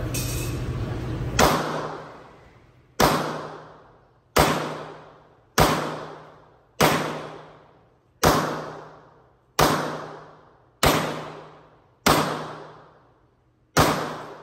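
Semi-automatic pistol fired in slow, evenly paced single shots, about ten in all, roughly one every 1.3 seconds. Each crack is followed by a short echo off the range's concrete walls. The pace is the deliberate slow fire of a trainee working on accuracy.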